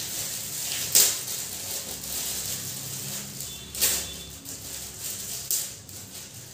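Metallic foil gift wrap crinkling and rustling as it is pulled apart by hand, with three louder, sharper rips about a second in, near the middle and toward the end.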